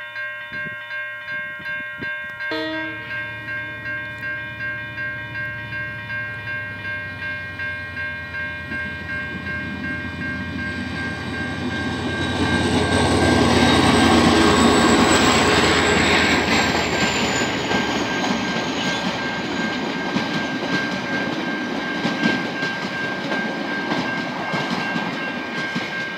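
Safetran electronic level-crossing bell ringing in a steady pulse of about two strikes a second, with a train horn sounding about two and a half seconds in. A KiwiRail diesel-electric locomotive then approaches and passes, its engine loudest about halfway through, followed by the passenger cars rolling over the crossing with wheel clatter while the bell keeps ringing.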